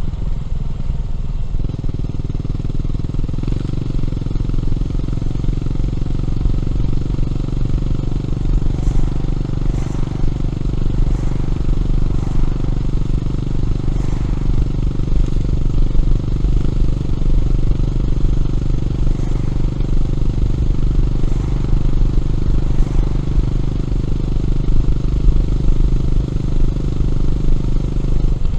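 Honda CB400SS air-cooled single-cylinder engine through a Yamamoto aftermarket exhaust, running under way at a steady speed. The engine note changes about a second and a half in, then holds steady, with a short break right at the end.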